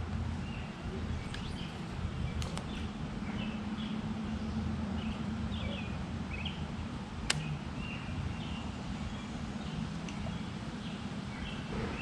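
Outdoor ambience: small birds chirping briefly here and there over a steady low rumble, with a few sharp clicks, the loudest about seven seconds in.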